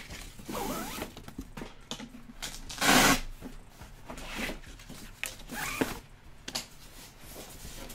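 Black packaging straps being pulled off a large cardboard statue box: rustling, scraping strap-on-cardboard sounds in short spurts, with one loud rasping rip about three seconds in.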